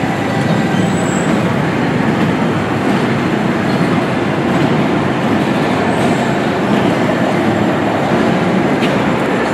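Kiddie ride train running along its small rail track loop: a steady, even running noise of the train on its rails.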